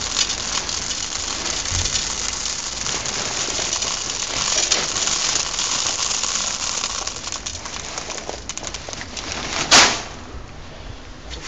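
Small gravel poured from a bag into a large stoneware pot: a steady, dense rattle of many little stones landing on the pot and on each other, which eases off about nine seconds in. A short loud noise follows near the end.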